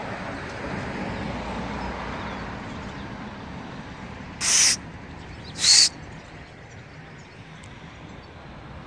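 Steady background hum of distant traffic, with two short, loud, hiss-like sounds about a second apart, a little over four seconds in.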